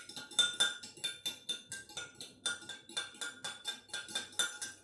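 A metal spoon clinking rapidly against the inside of a drinking glass as honey is stirred into the mixture, about five ringing clinks a second.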